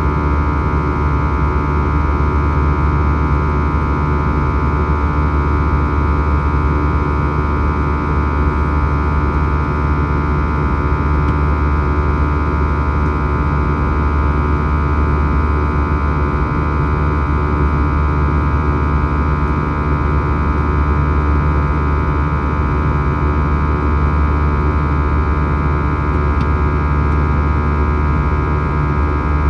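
Airbus A321's CFM56 turbofan engines running at steady thrust, heard inside the cabin: a loud, unchanging drone with several steady whining tones above it.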